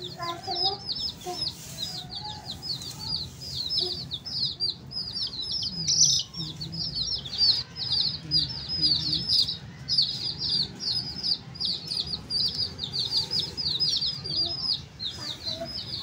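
A group of baby chicks peeping without pause, many short, high cheeps a second overlapping one another.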